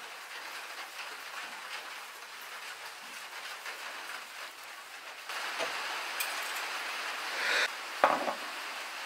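Knife cutting raw chicken on a wooden cutting board, with light taps of the blade on the board. About five seconds in the sound gets louder as pepper is spooned onto chicken pieces in a bowl, with a short hiss and then a knock near the end.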